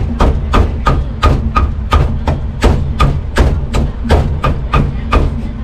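A cleaver chopping meat on a wooden chopping block in a fast, even rhythm of about three strokes a second, each chop a sharp knock with a short ring, over a steady low rumble.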